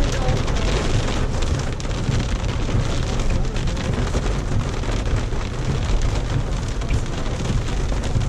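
Steady rain pattering down, thick with fine drop ticks over a low rumble.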